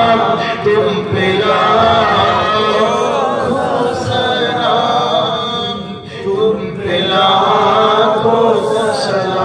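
A man's voice chanting verse through a stage microphone in a slow, melodic recitation style, in long drawn-out phrases, with a short break about six seconds in.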